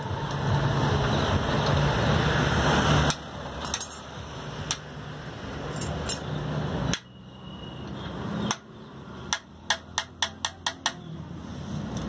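Sharp metallic taps and clinks from hand tools working on a bicycle wheel, ending in a quick run of about six taps near the end. A loud low rumble in the first three seconds cuts off abruptly.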